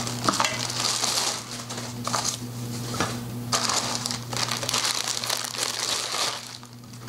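Plastic packaging bags crinkling and rustling in irregular bursts as drum-kit hardware wrapped in plastic is handled and pulled out of its box.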